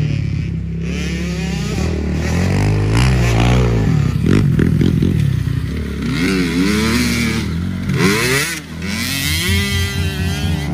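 Small kids' motocross bike engine revving up and down as it is ridden, its pitch repeatedly dropping and climbing again through the corners.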